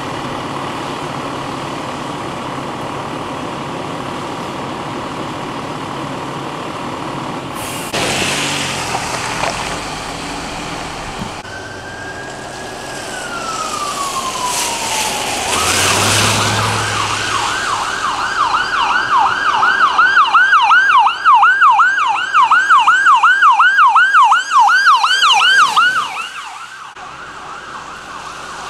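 Emergency vehicle siren: one slow falling wail, then a fast yelp of about three sweeps a second that is the loudest part and cuts off suddenly, over a steady background of noise.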